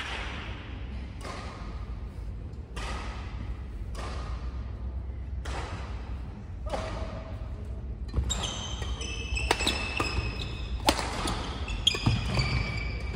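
Badminton rally in a sports hall: from about 8 s on, sharp racket strikes on the shuttlecock and short squeaks of court shoes on the floor. Before that, dull thuds echo in the hall about every one and a half seconds.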